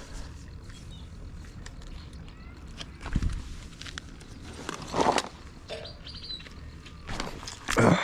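A low thump and two short, rustling bursts, with faint bird chirps in the background.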